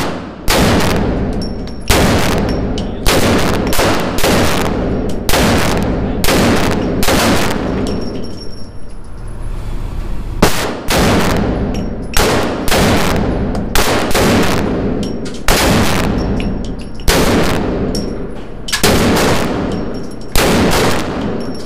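Desert Eagle Mark XIX pistol in .50 AE, without a muzzle brake, firing a long string of single shots about a second or so apart, each booming and ringing on in the echo of an indoor range. There is a pause of about two seconds around a third of the way through.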